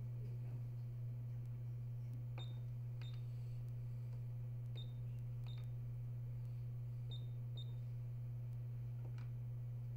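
Ultrasound machine's control panel giving short, high click-beeps in pairs, about six in all, as the examiner works the controls, over a steady low electrical hum.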